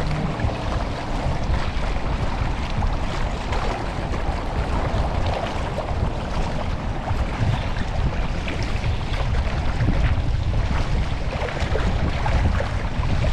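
Steady wind buffeting the microphone over the wash of open water.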